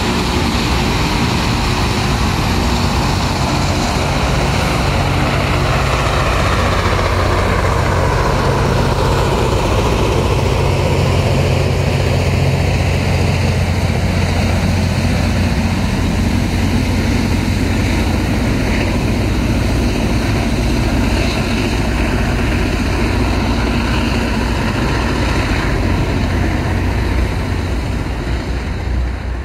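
Loram RG-404 rail grinder grinding the rail: a loud, steady roar of engines and grinding stones, with a whine that falls in pitch over the first third.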